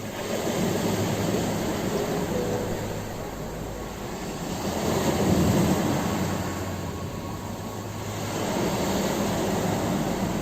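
Ocean waves breaking and washing up on a shore, the surf rising and falling in three surges, the loudest about halfway through.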